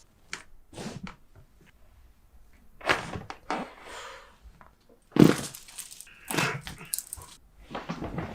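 Chiropractic adjustment: a handful of separate short cracks and thuds spread over several seconds, the loudest about five seconds in.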